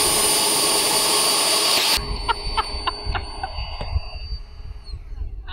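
Electric ducted fan of a 3D-printed model rocket running at full thrust with the rocket lying on the ground: a loud rushing hiss with a high whine, cut off suddenly about two seconds in. The fan then spins down, its whine fading over a couple of seconds, with a few light clicks.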